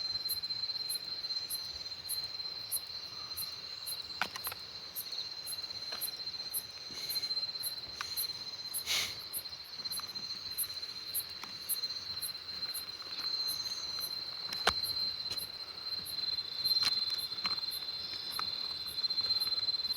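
Insects calling in a field: a steady high-pitched buzz, with a second, higher chirp pulsing about twice a second. A few sharp clicks come through now and then.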